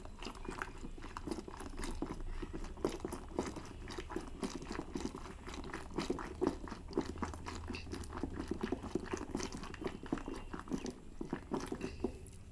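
Wooden mathani (hand churn) spun back and forth between the palms in yogurt in a steel pot, making a rapid, irregular wet clicking as the yogurt is churned into frothy lassi.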